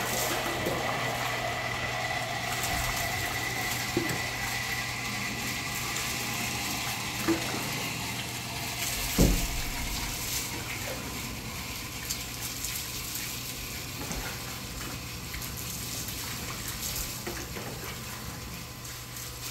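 Water scooped from a plastic basin and poured over a wet dog's coat, splashing onto concrete, with a few knocks, the loudest about nine seconds in.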